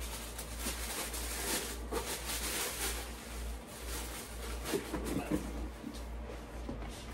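Rustling and handling of clothing and plastic shipping bags, in many small light crinkles and scrapes, over a steady low hum.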